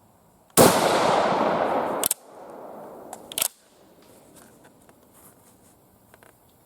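One shot from a Swiss K31 rifle in 7.5×55mm Swiss, the report ringing on for about a second and a half. It is followed by a few sharp metallic clacks over the next second or so as the straight-pull bolt is cycled.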